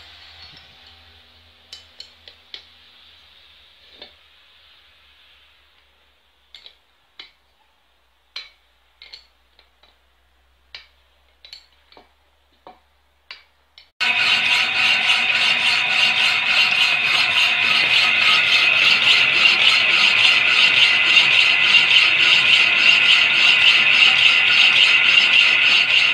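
Scattered light metallic clicks and taps of a spanner on a small two-stroke engine's parts. About halfway through, a homemade electric power hacksaw starts sawing a steel bar, a loud steady scraping of the blade through the metal.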